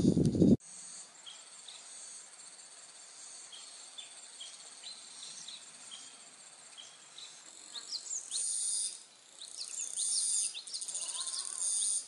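Insects trill and buzz steadily in high tones, with many short rising bird chirps. From about two-thirds of the way in, louder insect trills come in bursts. At the very start, a loud low noise cuts off abruptly about half a second in.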